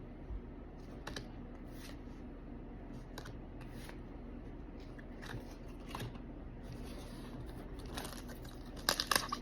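Faint crinkling of a foil Pokémon booster pack wrapper and the rustle and tap of trading cards being handled, in scattered small sounds with a louder run of crinkles near the end.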